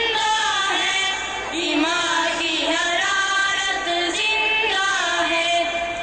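Schoolboys singing a song into microphones, the sung voices holding and bending through the melody.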